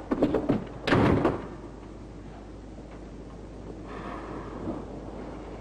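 A heavy door being shut: a quick run of knocks and clanks ending in a loud bang just over a second in, then only faint hiss.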